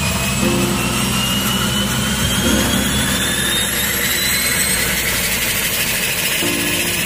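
Cessna Grand Caravan's PT6A turboprop engine starting: a steady turbine whine rises gradually in pitch as the engine spools up, over a low engine rumble.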